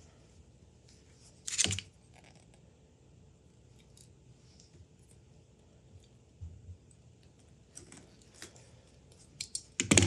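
Small clicks and handling noises of a hand crimping tool and stripped electrical cord as lugs are crimped onto the wire ends, with one louder scrape about a second and a half in and a quick run of clicks near the end.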